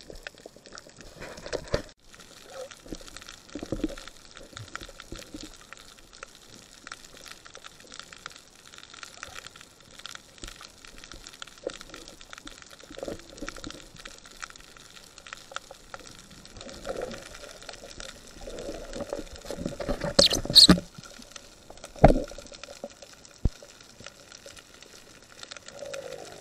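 Underwater sound picked up through a camera housing: a steady fine crackling with scattered small bubbling sounds. About twenty seconds in there is a louder burst of bubbling, followed by a sharp knock.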